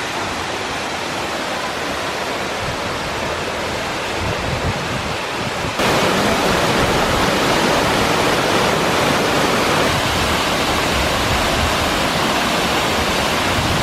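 Waterfall rushing steadily, a dense even roar of falling water; about six seconds in it turns suddenly louder and fuller.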